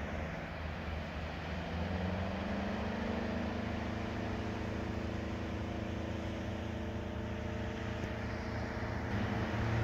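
An engine running steadily with a low hum, its pitch creeping up a little in the first few seconds and then holding.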